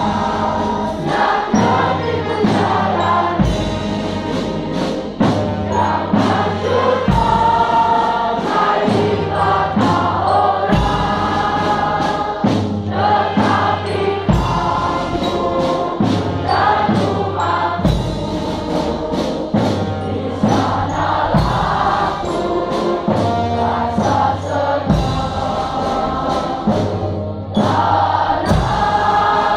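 Large school choir of boys and girls singing a song together, many voices sustaining long notes.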